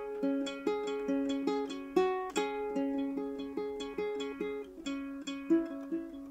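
Ukulele played solo: a melody of single plucked notes, several a second, over a repeated lower note that keeps ringing.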